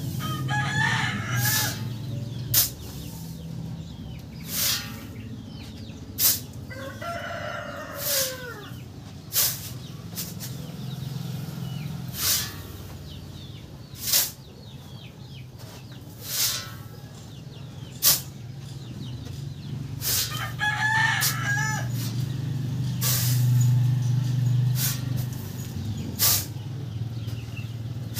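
A rooster crows three times, near the start, about eight seconds in and about twenty-one seconds in. Between the crows a steel shovel scrapes into a sand pile in regular strokes about every two seconds, over a steady low hum.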